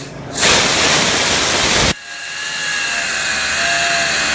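Pneumatic reciprocating air saw running, with a loud rush of exhaust air. About two seconds in, the sound changes suddenly as the blade cuts into a metal tube, and a steady high ringing tone rides over the hiss.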